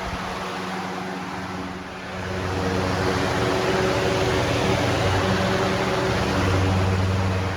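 Lasko box fan running on high speed, carrying a 2005 Lasko 3733 motor and blade set: a steady rush of air over a low motor hum. It gets louder about two seconds in and stays so until near the end. The thin blade set is badly out of balance, and the fan is shaking.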